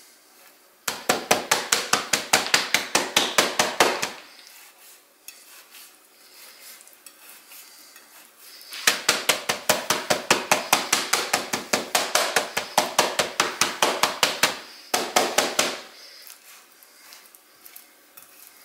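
A chef's knife rapidly striking a slab of raw pork neck on a glass cutting board, tenderizing the meat with quick, even chops of about eight a second. The chopping comes in runs with short pauses between them.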